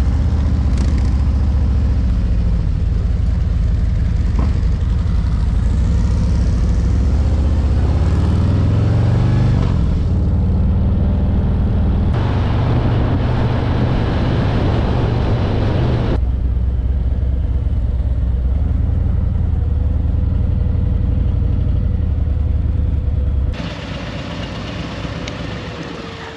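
Harley-Davidson V-twin engine heard from on board the bike while riding: it pulls away and rises in pitch through the gears, then runs steadily at road speed with wind rush. About 23 seconds in, the sound drops sharply to a much quieter level.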